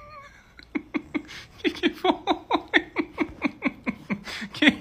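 A man laughing hard: a rapid run of short 'ha' bursts, about three or four a second, starting just under a second in.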